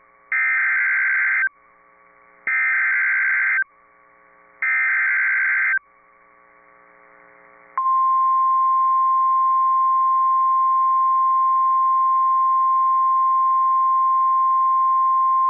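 NOAA Weather Radio SAME alert header: three bursts of warbling digital data, each about a second long and about a second apart. A couple of seconds later the steady 1050 Hz warning alarm tone comes in. Together they announce a new severe thunderstorm warning broadcast.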